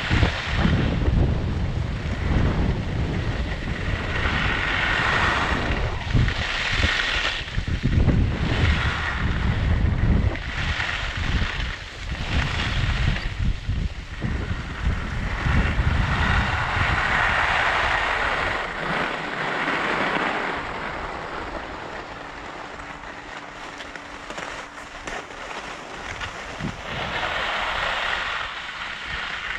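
Skis carving turns on freshly groomed snow, a swish with each turn every second or two, with wind rushing over a GoPro microphone. About two-thirds in the turns ease off and it goes quieter for several seconds before picking up again near the end.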